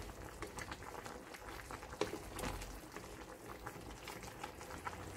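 Thick soy-based braising sauce of Korean braised beef short ribs bubbling in a stainless pan, a faint run of many small irregular pops, with a wooden spoon moving through the stew.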